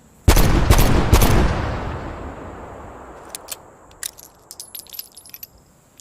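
Magnum revolver gunshot: a loud report, with two more sharp cracks about half a second apart, then a long rumbling decay over about two seconds. It is followed by a run of sharp metallic clicks and light ringing clinks.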